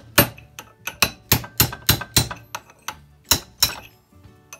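Hammer blows on a steel punch, metal on metal, driving an old socket out of the eye of a hammer head held in a bench vise. About a dozen sharp ringing strikes come about three a second and stop a little before the end, with a few faint taps after.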